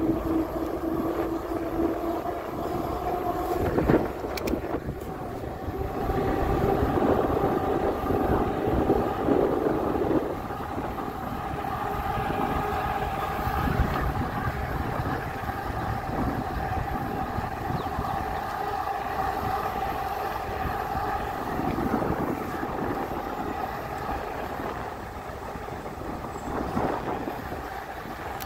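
RadPower RadRover 6 Plus fat-tire electric bike riding at speed on pavement: a steady whine from the hub motor and tyres over a low rumble of wind on the phone's microphone. One tone drops out after about two seconds, and another rises for a few seconds around the middle.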